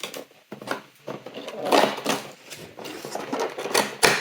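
Cardboard and plastic packaging being handled as an advent calendar compartment is opened and a small toy taken out: irregular rustling, scraping and light clicks, loudest about two seconds in and again near the end.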